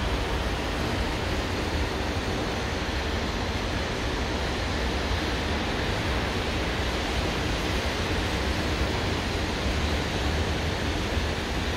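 Rolls-Royce Trent 895 turbofans of a twin-engined Boeing 777-200ER at takeoff power: a steady, even jet roar with a heavy low rumble.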